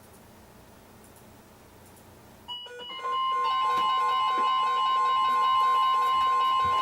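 Faint radio hiss, a brief electronic chirp about two and a half seconds in, then the steady 1050 Hz NOAA Weather Radio warning alarm tone, with several weather radios' own alarms beeping at different pitches over it: the radios are being activated for an incoming flood warning.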